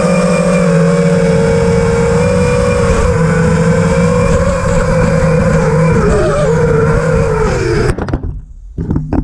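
Electric motors and propellers of a 5-inch FPV quadcopter running with a steady whine, the pitch wavering and sagging about six to seven seconds in. The sound cuts out abruptly about eight seconds in, then comes back in a few short, ragged spurts.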